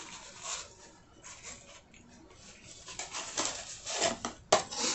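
Cardboard food box being handled, rubbing and scraping in irregular rustles that get busier in the last two seconds, with a sharp tap near the end.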